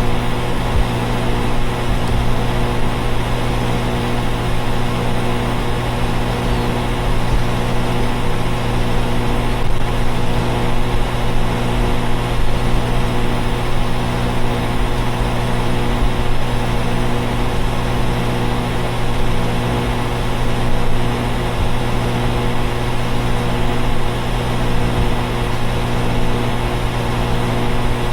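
Central air conditioner outdoor units running: a steady, unchanging low hum with a strong low tone and its overtones over the rush of the fans.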